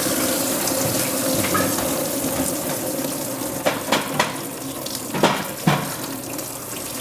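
Engine coolant pouring from the radiator drain into a drain pan: a steady splashing stream that eases off slightly, with a few clinks partway through.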